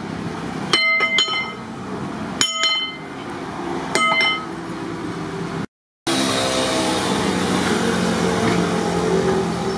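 A steel car-axle shaft knocked five times, in twos and then once, each blow ringing with a clear metallic tone. After a brief cut-out about two thirds of the way in, a louder steady rumble with low humming tones takes over.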